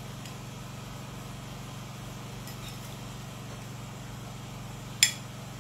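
Steady low hum, with one sharp click of a utensil against the dish about five seconds in.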